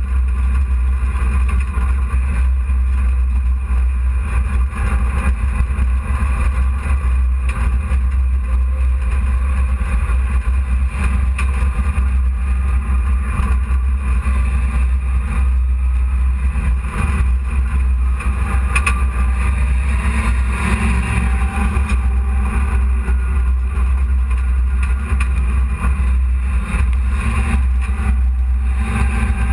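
Dirt-track hobby race truck running on the track, heard from inside its cab: a loud, steady engine drone with a heavy low rumble.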